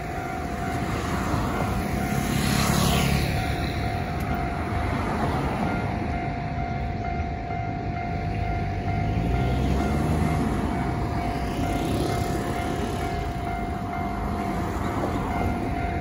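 Japanese railway level-crossing alarm ringing steadily while the crossing is closed. Road traffic passes by, swelling twice: about two seconds in and again around ten seconds in.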